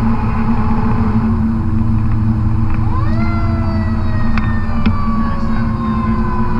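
Fire apparatus running down the highway, heard from inside the cab, with its Caterpillar C12 diesel engine droning steadily. About three seconds in, a mechanical siren winds up quickly and then coasts down slowly in pitch.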